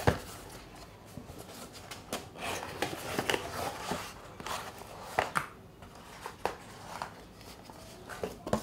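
A cardboard shipping box being handled and opened by hand: flaps folded back, cardboard rubbing and scraping, and a string of short knocks and taps, one sharp knock at the very start.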